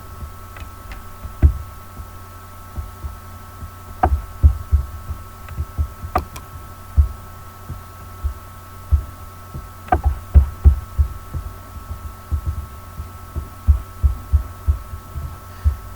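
Irregular low thumps and a few sharp clicks from computer mouse handling and desk bumps, picked up by a desk microphone over a steady electrical hum.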